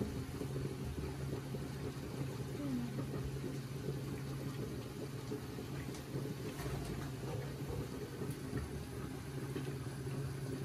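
A steady low hum with a constant background rumble, of the kind a running kitchen appliance or fan makes, with a few faint clicks past the middle.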